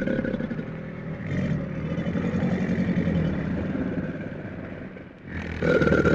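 A large animal's low, rough, rapidly pulsing growl. It fades about five seconds in, then starts again loudly.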